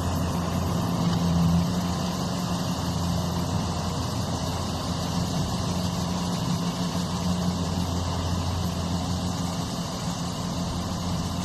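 A large engine running steadily at an even speed, a constant low hum under a broad mechanical rush, with no change in pitch.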